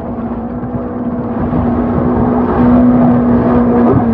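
Corvette-bodied jet boat running at speed: a steady engine note over the rush of its jet wash and spray, growing louder as it comes closer.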